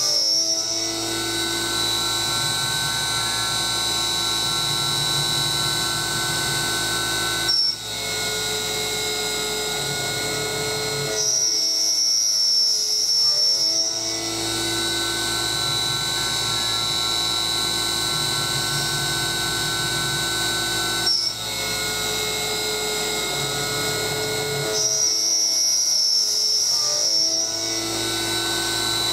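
CNC milling spindle driven by a brushless DC motor, running as an end mill cuts 6061 aluminum under flood coolant. It gives a steady whine of several tones whose mix changes in a cycle of about 13–14 seconds as the tool path repeats. A high tone comes in for a few seconds three times, and a brief sharp knock with a momentary dip comes twice.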